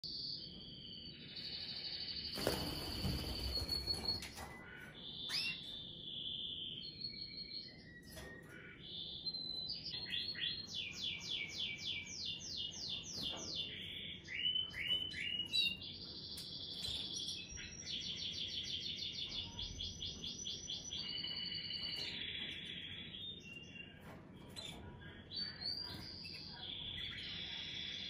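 Domestic canary singing: long runs of fast, evenly repeated trills and chirps, changing from one run to the next. A brief loud noise about two to four seconds in.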